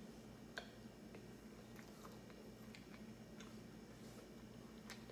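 Near silence: room tone with a faint steady low hum and a few faint, short clicks.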